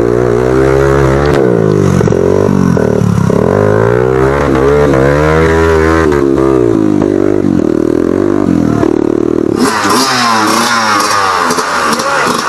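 Yamaha dirt bike engine revving up and down as it works along a muddy trail. About ten seconds in it gives way to a higher-pitched dirt bike engine with water splashing as the bike crosses a muddy stream.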